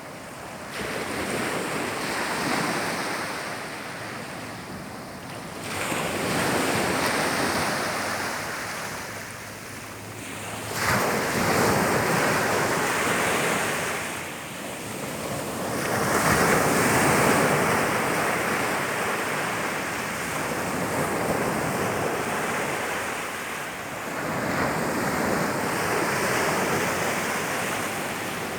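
Mediterranean surf breaking and washing up the beach, the noise swelling and falling away in a fresh surge every four to six seconds.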